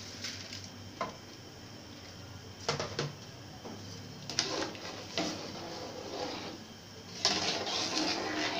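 Metal ladle stirring rice into boiling stock in a large aluminium pot, knocking and scraping against the pot several times with liquid sloshing; the stirring gets busier and splashier near the end.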